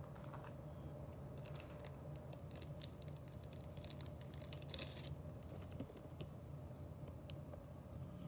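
Quick light clicks and crackles, dense for a few seconds and then sparse, as blister-packed diecast cars are handled. A steady low hum sits underneath.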